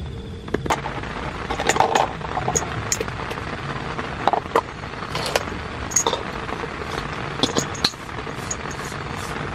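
Steady rain with a dozen or so scattered clinks and knocks of small hard objects being handled, loudest about two seconds in and again in the middle.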